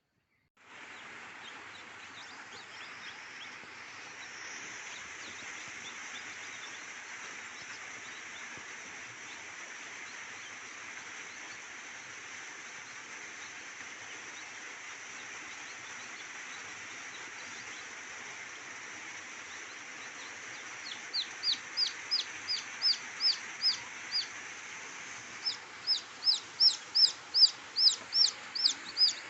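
Steady background hiss. In the last third, two runs of rapid, high, repeated bird chirps come in, about three to four notes a second.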